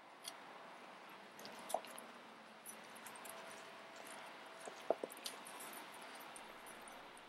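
Faint background ambience with a few brief light clicks and knocks, the sharpest about two seconds in and again near five seconds.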